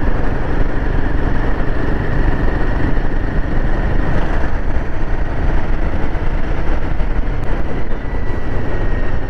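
Royal Enfield Himalayan 450's 452 cc single-cylinder engine running at a steady cruising speed, under heavy wind and road noise on the microphone.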